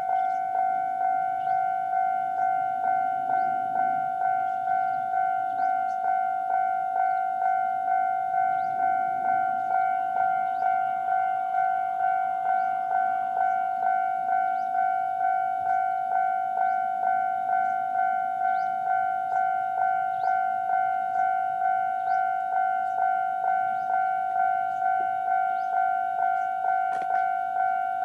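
Japanese railway level-crossing alarm ringing its normal warning: an electronic bell striking steadily, a little more than once a second, over a two-note ring.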